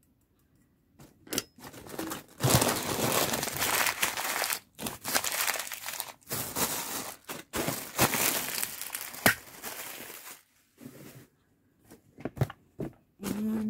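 Packaging crinkled and torn open by hand to unwrap a small gift, in irregular rustling stretches with sharp crackles; it dies away to a few small clicks near the end.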